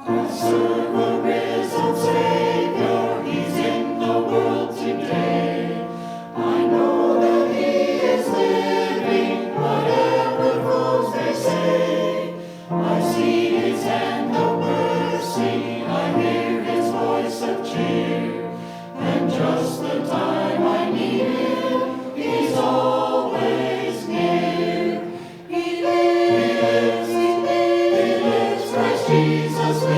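A choir singing a joyful hymn of praise with instrumental accompaniment, in phrases of a few seconds each.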